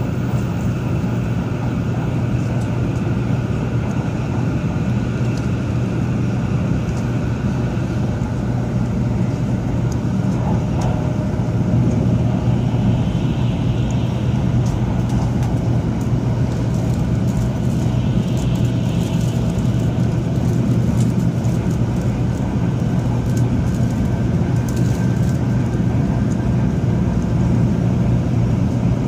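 Cabin noise of a Taiwan High Speed Rail 700T bullet train cruising at speed: a steady low rumble and rush from the running gear and the air, with a constant low hum and faint clicks through the middle stretch.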